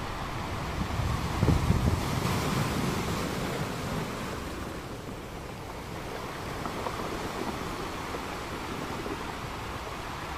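Wind buffeting the microphone over the steady wash of surf. The wind gusts are strongest in the first couple of seconds, then settle.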